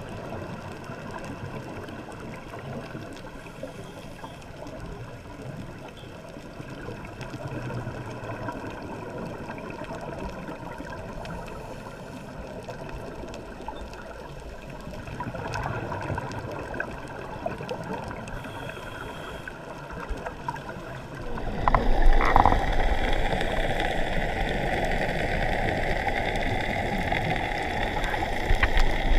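Water noise with gurgling and bubbling. It becomes suddenly louder about three-quarters of the way through and stays louder.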